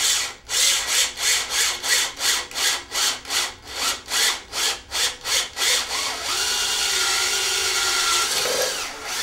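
Cordless drill boring out the stripped stud hole in an air-cooled VW engine's magnesium crankcase, enlarging it to be tapped for an oversized 8 mm stud. The drill runs in short pulses about three a second, then runs steadily for about three seconds and stops near the end.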